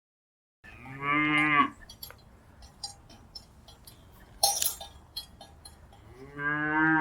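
A cow mooing twice: a short moo about a second in and another beginning near the end, with faint clinks and one sharp clank in between.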